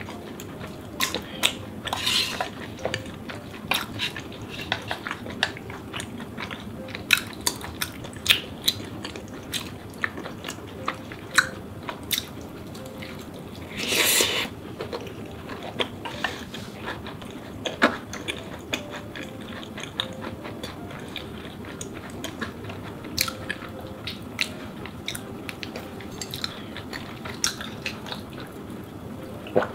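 Close-up eating sounds: chewing and mouth sounds of soft food, with frequent light clicks of chopsticks and a spoon against a bowl and pot. A brief louder slurp comes about halfway through.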